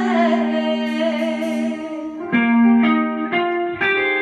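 Khmer oldies karaoke: a woman's voice holds a final note with vibrato through the first second or two, then the backing track's electric guitar plays a run of plucked notes for the instrumental ending.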